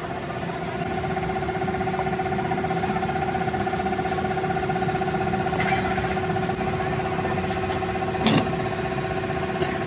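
A machine running steadily with a constant-pitched hum over a low rumble, and a single sharp knock about eight seconds in.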